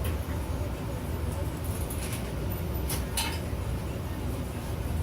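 A few light clinks and rattles of small hand tools being handled, about two and three seconds in, over a steady low background rumble.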